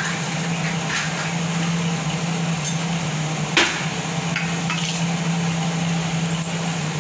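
Steady kitchen hum and hiss from a gas burner heating a steel pot of boiling water, with one sharp knock about three and a half seconds in and a few light clicks of a glass bowl being handled.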